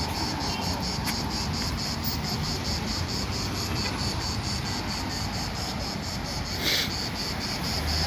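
Insects chirping in a steady chorus that pulses about four times a second, over a low outdoor rumble. A brief burst of noise comes about two-thirds of the way through.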